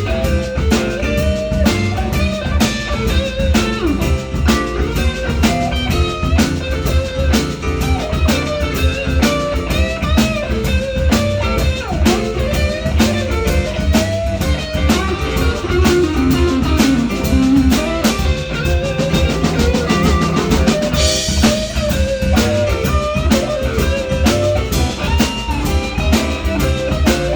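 Live blues band playing an instrumental passage of a blues song: guitar lines over a steady drum kit beat, with a cymbal crash about three-quarters of the way through.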